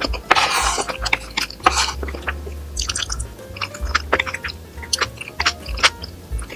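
Close-up eating sounds: chewing with many sharp clicks and taps, and two short rustling bursts, over quiet background music.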